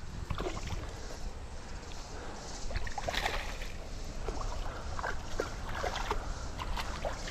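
Running stream water with scattered light splashes, clicks and knocks while a hooked fish is fought and reeled in on light tackle, over a steady low rumble.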